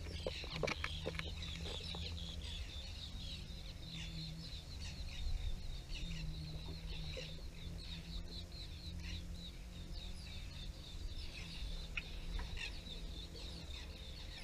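A noisy chorus of many birds chattering and chirping together, the birds' feeding-time racket. Underneath there is a steady low hum, and a few light clicks come near the start.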